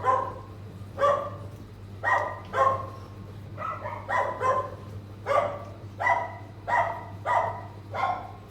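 A dog barking over and over, about a dozen short barks at a steady pace of just over one a second.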